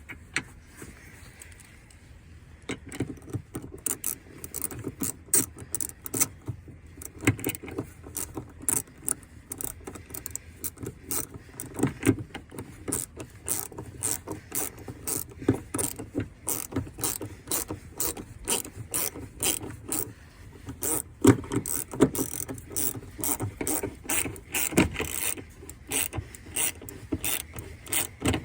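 Socket ratchet wrench clicking in quick runs of strokes as a bolt is turned in, starting about two seconds in and going on with short pauses.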